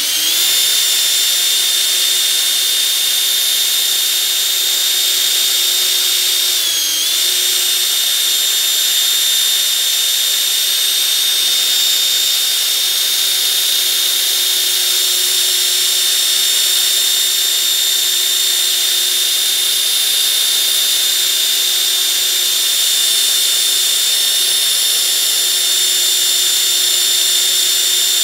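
Cordless drill running steadily at speed, spinning a workpiece in its chuck while it is polished with steel wool. The motor whine dips briefly about seven seconds in, as if under load, then recovers.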